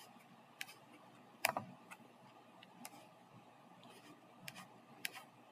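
Computer mouse clicks, about half a dozen scattered short clicks with one louder one about one and a half seconds in, over faint room hiss.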